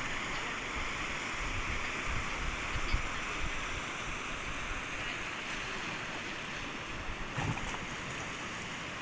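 Sea waves washing onto a beach, a steady continuous rush of surf.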